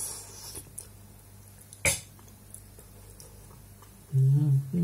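A man eating a spoonful of hot stew: a short breathy slurp, a sharp click of the spoon about two seconds in, then a drawn-out voiced 'mmm' near the end.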